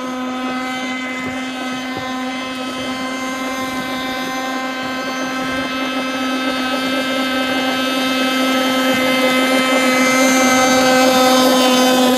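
RC airboat's nitro glow engine, mounted on a pylon and driving an air propeller, running flat out at one steady high pitch. It grows louder over the second half as the boat comes closer.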